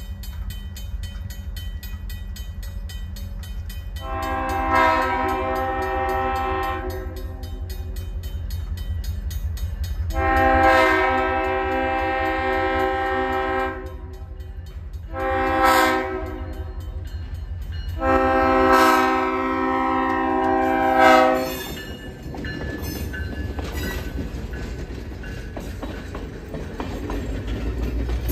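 Diesel locomotive horn, GP38 #255's, sounding the grade-crossing signal: long, long, short, long. Under it run the steady rumble of the approaching train and the crossing bell ringing quickly and evenly. After the last blast the train rolls over the crossing, its passenger coaches rumbling past near the end.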